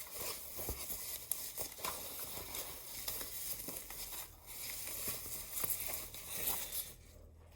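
Protective wrapping crinkling and rustling as a new keyboard is unwrapped by hand, with many small crackles; it dies down about seven seconds in.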